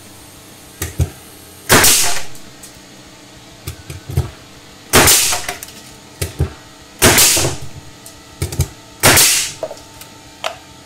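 DeWalt 21-degree pneumatic framing nailer firing nails into a wooden block four times, about two seconds apart, each shot a sharp bang with a short tail, with light clicks of the tool between shots. The nailer has just been rebuilt with new O-rings and now fires without leaking air.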